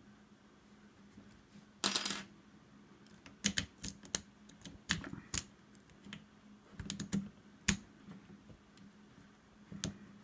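Steel lock picks clicking and scraping in a double-sided wafer lock as it is raked open with a rake and tension wrench, in short clusters of clicks. About two seconds in comes a brief, loud metallic jingle, the loudest sound.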